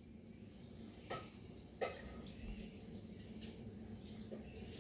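Quiet rustling of a hand stroking a cat's fur close to the microphone, with a few soft clicks, the sharpest about two seconds in, over a faint steady low hum.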